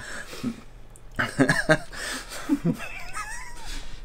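Two men stifling laughter: breathy snickers and chuckles in short bursts, with a brief high squeaky warble about three seconds in.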